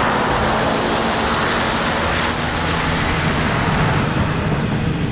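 A four-wheel-drive ute driving through a shallow flooded crossing on a dirt road, its tyres splashing and rushing through the water over the steady running of its engine as it passes close by. The splashing is loudest in the first half.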